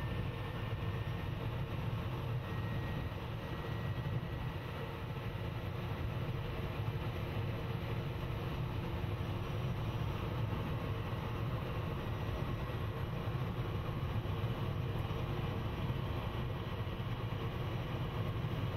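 Steady low rumble of a moving vehicle's engine and tyres, heard from inside the cab as it drives along at an even speed.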